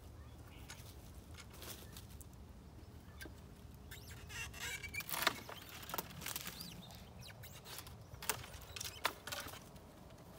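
Long-handled loppers cutting bare fruit-tree branches during winter pruning: a series of sharp clicks and snaps, several close together, the loudest about five seconds in, with brushing and crackling of twigs between them.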